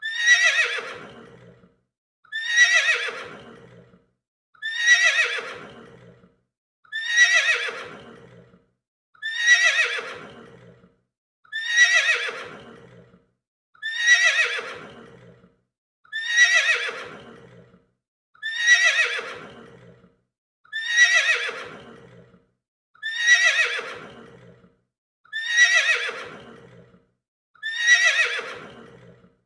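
A horse neighing, played as a looped recording. The same short whinny, falling in pitch, repeats evenly about every two and a quarter seconds, some thirteen times, with a brief silence between calls.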